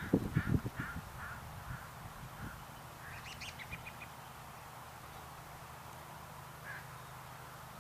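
A bird calling in a series of short, harsh, caw-like calls over the first two seconds. A quick run of clicks follows about three seconds in, over a faint steady low hum.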